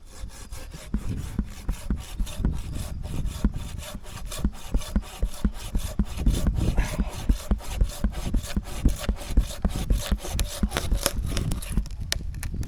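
Hand pruning saw cutting through a tree limb in quick, even back-and-forth strokes, stopping near the end.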